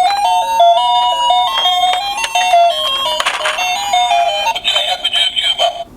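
A simple electronic tune of short notes stepping up and down, like a chime melody, lasting about four and a half seconds before a different sound takes over near the end.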